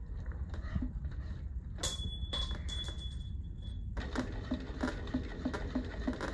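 Industrial Juki sewing machine stitching slowly: an even ticking of about three stitches a second starts about four seconds in, over a low hum. Before the stitching, a click is followed by a thin, high, steady whine for about two seconds.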